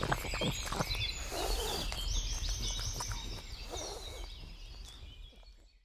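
Spring birdsong, several birds singing with a quick run of repeated high notes about two seconds in, over a few sharp clicks early on from a pug gnawing a raw steak bone. Fades out near the end.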